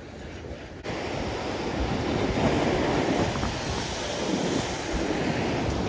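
Ocean surf churning and washing against rocks. It is muffled for the first second, then opens up suddenly into full, steady wave noise.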